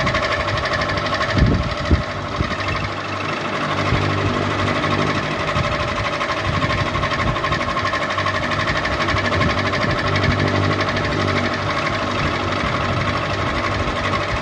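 Ceiling fan running, a steady mechanical whirr and hum with a fast, even rattle. Two brief knocks come about a second and a half in.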